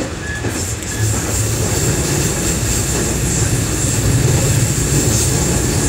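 Running noise heard inside a JR West 207 series 1000 subseries (refurbished) electric commuter car: a steady low rumble of wheels and traction gear with a high hiss above it, growing louder about a second in.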